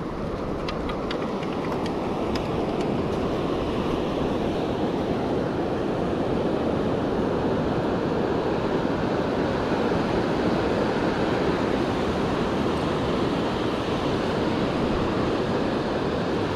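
Steady rushing noise of wind and surf, growing louder over the first few seconds and then holding, with a few faint clicks near the start.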